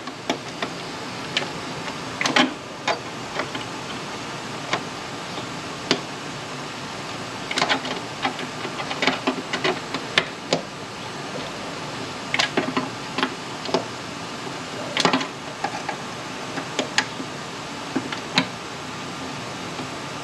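Irregular light metallic taps and clicks of hand work on the rusted sheet metal of a fender's wheel well, over a steady background hum.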